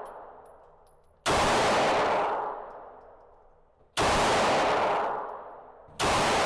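Three 9mm pistol shots from a Glock 45, the second about two and a half seconds after the first and the third about two seconds later, each dying away in a long echoing decay.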